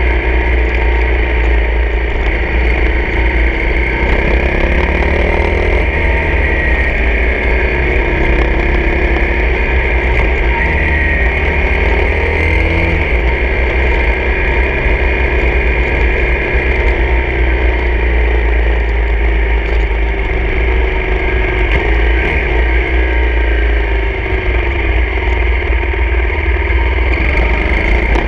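Honda CRF250 dirt bike's single-cylinder four-stroke engine running under way, its pitch rising and falling several times as the throttle is opened and eased, over a constant low rumble.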